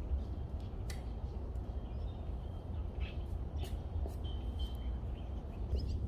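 A shovel digging into soil, with a few short scrapes and knocks, over a steady low rumble. A bird gives a few short chirps about four seconds in.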